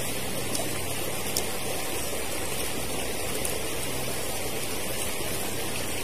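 Stream water running steadily, an even rushing noise.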